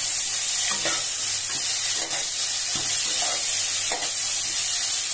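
Diced pumpkin sizzling in hot oil in a metal kadhai as it is sautéed, over a steady frying hiss. A metal spatula stirs and scrapes against the pan about once a second.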